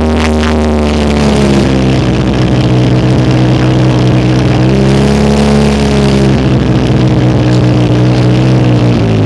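Side-by-side utility vehicle's engine running steadily while driving a dirt trail, heard from inside the enclosed cab; its pitch holds steady and shifts up or down a few times.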